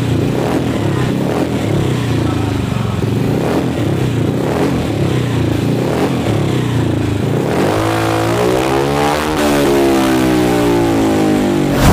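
Bored-up Vespa Sprint 150 single-cylinder four-stroke engine with an oversize piston, running steadily at idle, then revved up and down through the last few seconds.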